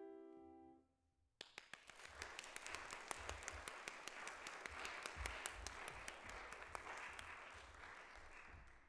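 The last chord of an August Förster grand piano dies away, then after a short pause an audience applauds, the clapping slowly thinning out near the end.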